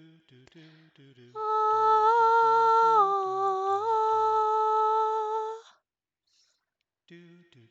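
A voice humming one long, loud note that dips lower for about a second in the middle and then returns, over soft background music. The humming stops about two seconds before the end, and the music drops out briefly before coming back.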